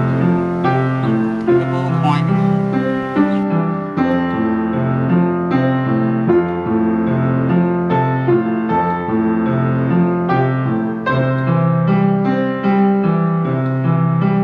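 Background piano music, a steady sequence of sustained chords and melody notes.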